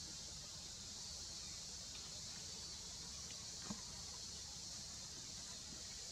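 Faint forest ambience: a steady high insect drone with a low rumble beneath, and one brief click a little past halfway.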